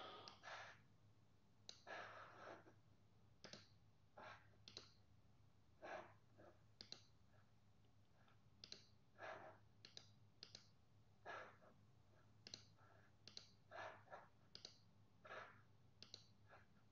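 Faint computer mouse clicks, short and irregularly spaced, over a faint steady low hum.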